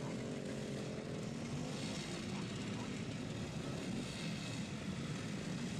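Several small two-stroke moped and motorcycle engines running together at once, a steady mixed engine drone.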